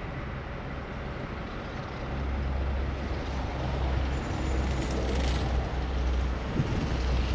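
Wind buffeting the microphone at an exposed lookout: an even hiss, with a low, unsteady rumble that strengthens about two seconds in.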